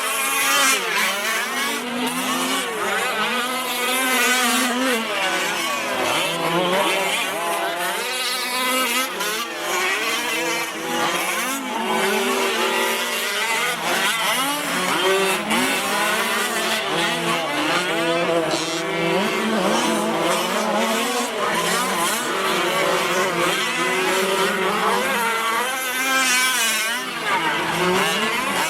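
Several 1/5-scale gas-powered 4WD RC racing trucks, Losi 5ive-Ts among them, racing together. Their small two-stroke engines rev up and down, the overlapping pitches rising and falling continuously.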